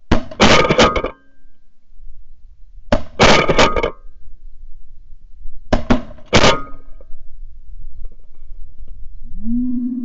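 Several shotguns firing in three rapid volleys, each a tight cluster of shots lasting about a second, roughly three seconds apart.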